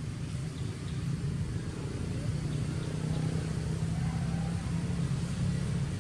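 A motor vehicle engine running with a steady low hum, growing louder from about two seconds in.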